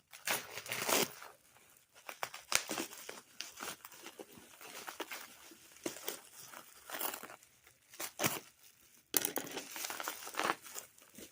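Plastic bubble wrap and cellophane packing being pulled off and handled, crinkling and tearing in irregular bursts, with a brief lull a little before the end.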